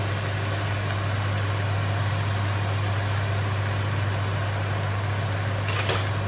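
Steady low mechanical hum with a light hiss in a kitchen, with a brief sharp clatter near the end.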